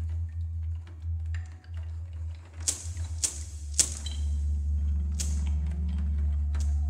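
Sparse contemporary percussion music: a handful of sharp, dry clicks or strikes at irregular intervals over a steady low hum, with a low wavering tone coming in about halfway.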